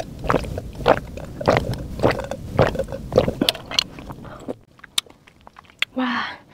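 A woman gulping a drink from a glass in quick, irregular swallows for about four and a half seconds, heard close up. About six seconds in she lets out a short breathy "ahh" after drinking.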